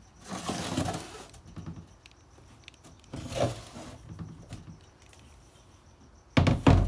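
Heavy aluminium cylinder heads being handled and shifted on a bench: scraping and rubbing of metal, then a loud heavy clunk near the end as a head is set down or knocked.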